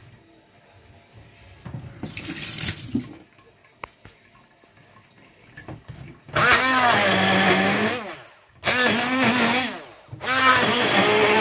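Electric stick blender running in a plastic jug, puréeing a thick paste of cooked green chilies, garlic and dried fish. It runs in three pulses of about one and a half to two and a half seconds each from about six seconds in, its motor pitch sagging and recovering as it works through the mixture. There is a shorter, quieter burst about two seconds in.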